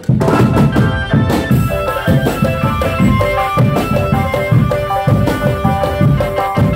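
Drum band music: a steady beat of heavy drums under a melody of held, stepping notes.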